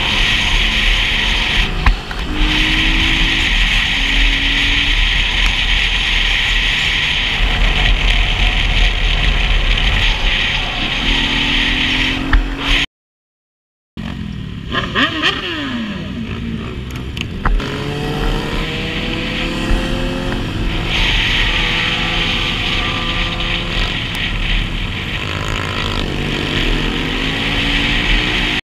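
Motorcycle engine running under way, revving up and shifting through the gears in short steps, under a steady rush of wind on the bike-mounted microphone. The sound drops out for about a second near the middle.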